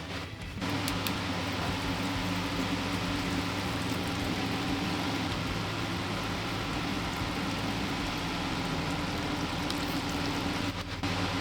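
Metal lathe running steadily while machining a steel barbell shaft: a low motor hum with a steady hiss over it, briefly dropping out just after the start and again near the end.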